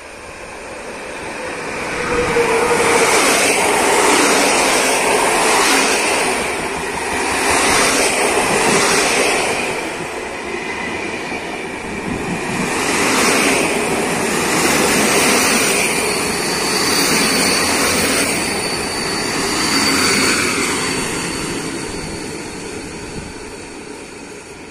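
PKP Intercity passenger train hauled by an EU160 (Newag Griffin) electric locomotive running past close by. The rumble and wheel noise build over the first two seconds as the locomotive arrives, then the coaches rush past in swells about every two seconds, with a thin high squeal for a few seconds near the end. The noise fades as the train moves away.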